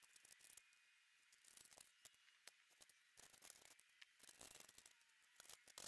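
Faint, irregular clinking and rattling of a steel lifting chain being handled and wrapped for an engine hoist, in short clusters, with some rustling of a nylon strap.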